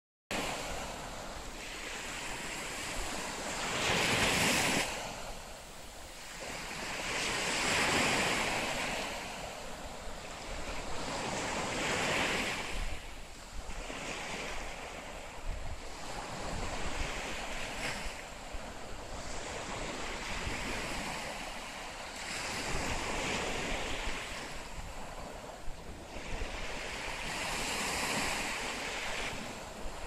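Small Baltic Sea waves breaking and washing up a sandy beach, a steady surf that swells and fades every few seconds.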